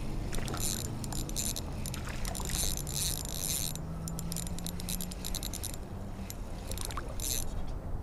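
Small ultralight spinning reel clicking rapidly in runs as its handle is cranked to reel in a hooked fish.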